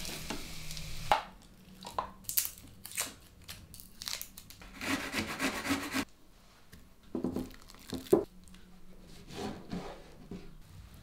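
A series of kitchen utensil sounds: a short frying sizzle and a spatula scrape in a nonstick pan at the start, then separate knocks and clinks, and a longer stretch of a metal spoon stirring and scraping in a ceramic bowl about halfway through.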